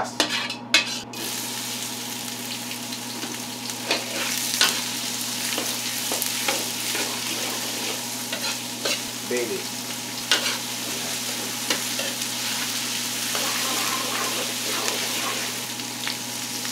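Chopped onions sizzling in hot oil in a stainless steel wok, the metal ladle clinking and scraping against the wok as they are stirred, with a few loud clinks at the start. A steady low hum runs underneath.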